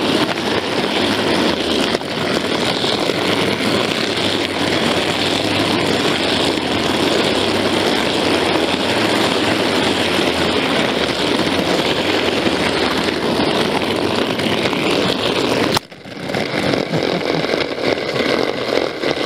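Clockwork toy train locomotives running close up, one pushing and one pulling a wagon along plastic track: a loud, steady buzzing whirr of the wound-up clockwork motors and wheels. It breaks off suddenly about sixteen seconds in, then starts again.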